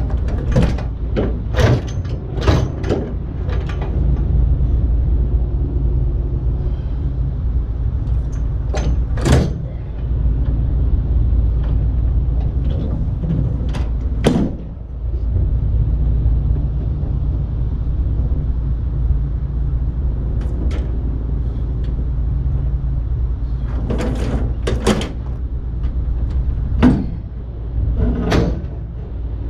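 Scattered metal clanks and knocks as a steel log bunk is worked on a trailer deck, in clusters near the start, around the middle and again near the end, over a steady low rumble.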